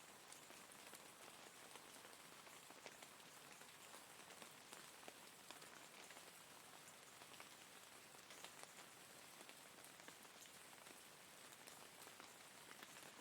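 Faint, steady rain falling, with many individual drops heard as small, sharp ticks over an even hiss.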